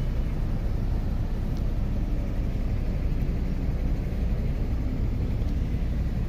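Steady low rumble of motor traffic, even throughout with no distinct events.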